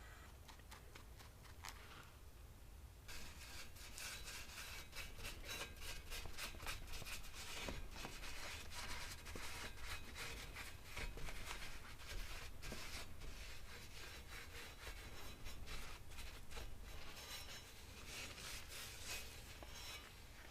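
Quick, repeated rubbing strokes, like hand sanding or scrubbing, quiet at first and then steady from about three seconds in.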